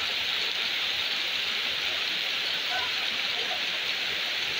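Heavy rain pouring down: a steady, even hiss of downpour on surfaces.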